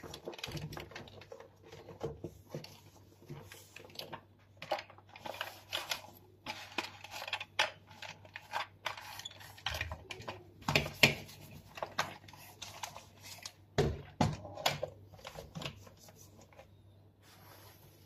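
A cloth rubbing and wiping the plastic housing of a Dyson vacuum cleaner floor head, with irregular clicks and knocks as the head is handled, turned over and set down on a stone worktop; the sharpest knocks come around the middle.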